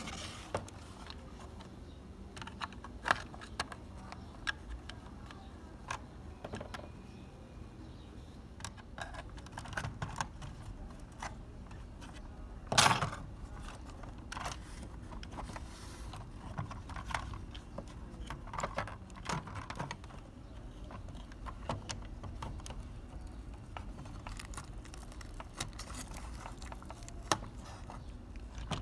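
Small clicks and taps of tools and small metal parts being handled while working on a toy model car, coming irregularly, with one louder knock about halfway through.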